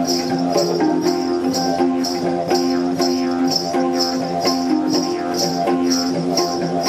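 A steel handpan played with the hands, its ringing notes over a didgeridoo drone. A high rattle marks a steady beat about twice a second.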